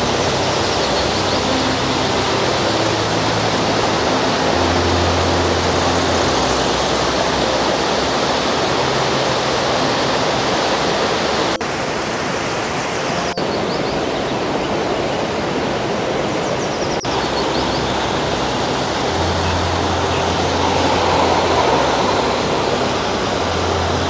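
Rushing water of a small river waterfall: a loud, steady, even rush of falling water.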